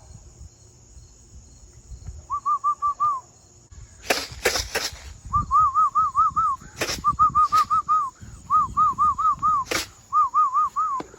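A person whistling to call in racing pigeons: five runs of quick, repeated rising-and-falling notes, four to six in each run. A few brief noisy bursts come between the runs.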